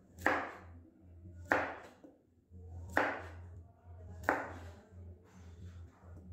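Chef's knife slicing through a carrot and striking a plastic cutting board: four slow, evenly spaced chops, a little over a second apart, over a low steady hum.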